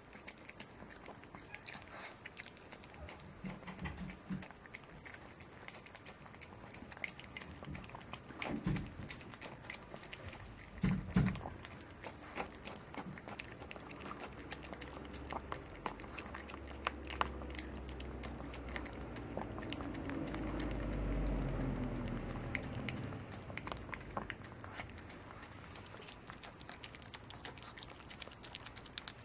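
Chihuahua licking and lapping at a soft jelly-topped dog cake in a plastic cup: a rapid, uneven run of small wet licking clicks, with a couple of louder knocks about a third of the way through.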